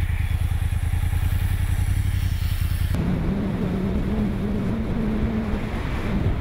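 Engine of a camera vehicle running at road speed: a low, fast-pulsing motorcycle-like rumble that cuts abruptly about three seconds in to a smoother engine hum, rising slightly in pitch, with wind and road rush.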